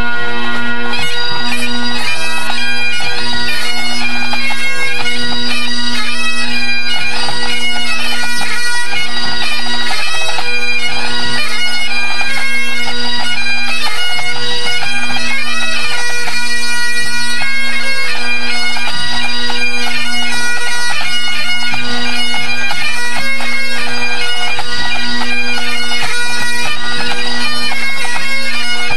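Great Highland bagpipes playing loud and close: a steady drone holds under a running chanter melody, as the pipes are played in during a pipe band's tune-up.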